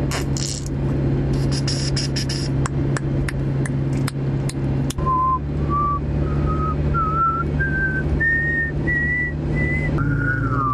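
A person whistling a rising scale of short notes, each a little higher than the last, ending in a wavering whistle. Before it come hissy bursts and a run of sharp clicks, about three a second, over the steady hum of a car cabin.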